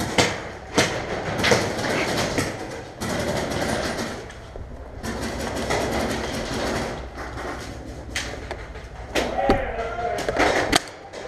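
Paintball markers firing in a paintball game: sharp, irregular pops, a few in the first couple of seconds and a cluster near the end, over a continuous noisy background.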